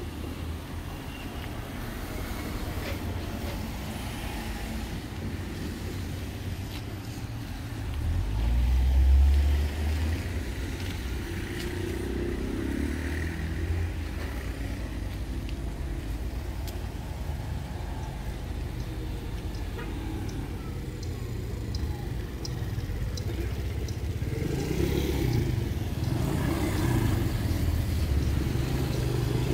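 Road traffic: cars passing with a steady low rumble. One pass is louder about eight to ten seconds in, and the traffic grows louder near the end.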